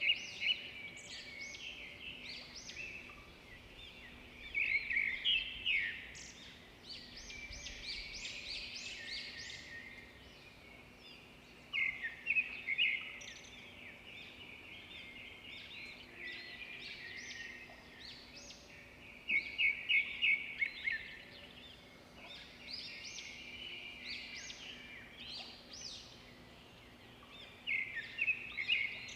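Small songbirds chirping and singing, with a burst of rapid repeated notes every several seconds.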